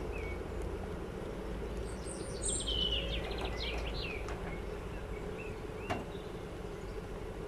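Steady hum of honeybees around the open hive, with a songbird singing a short twittering phrase about two and a half seconds in and a single sharp click about six seconds in.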